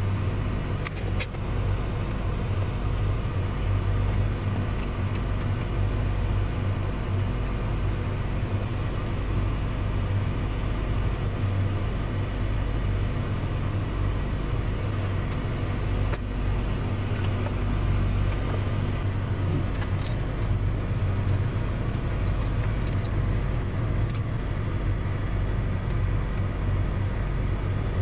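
Idling 1991 Mazda Miata with its 1.6-litre four-cylinder and air-conditioning blower running, heard from inside the cabin as a steady low hum and rush of air. A few light clicks from hand tools on the dash trim.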